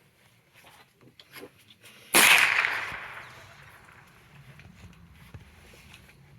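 A single shot from a Winchester Wildcat .22 rimfire rifle: one sharp crack about two seconds in, dying away over about a second.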